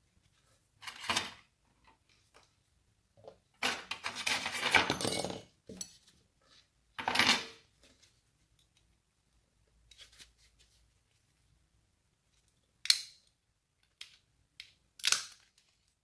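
Handling noise from gloved hands working a bare phone circuit board and small plastic repair tools: short rustles, scrapes and light clicks, with a longer scraping stretch about four seconds in and two sharp clicks near the end.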